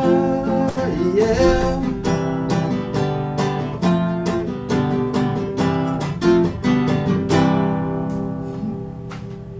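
Acoustic guitar strummed in steady rhythm as a song closes, with a man singing a last "yeah" at the start; the strumming grows quieter and a final chord rings out near the end.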